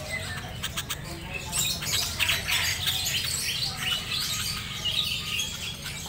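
Sooty-headed bulbul calling, a busy run of short chirps and squawky notes that grows denser after the first second or so, with a few sharp clicks near the start.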